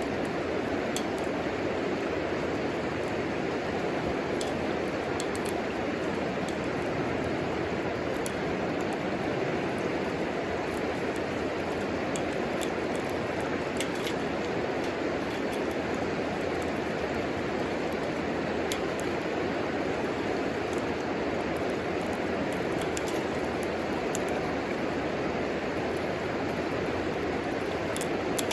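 Wood fire burning in a homemade wood stove: small, sharp crackles and pops at irregular moments over a steady rushing noise.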